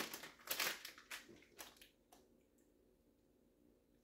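Small retail packaging crinkling and tearing as it is pulled open by hand: a run of irregular crackles for about two seconds, then it stops.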